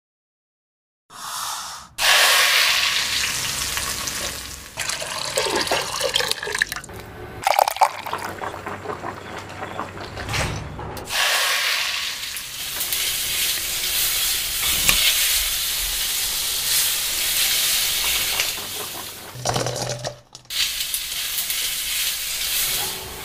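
Garlic, ginger and crayfish sizzling in hot oil in a wok while being stirred. The sizzle is steady, with abrupt breaks where the shots change about 11 and 20 seconds in.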